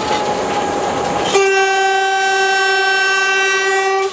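Diesel locomotive horn heard from inside the cab: one steady blast starting about a second and a half in, held for nearly three seconds, then cut off sharply, over the rumble of the moving locomotive.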